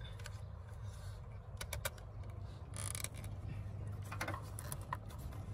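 Small plastic clicks and brief scraping as a corrugated plastic wiring-harness loom is handled and its clips pressed onto a plastic air cleaner box. There is a quick cluster of clicks about a second and a half in and a short scrape around three seconds in, over a low steady background hum.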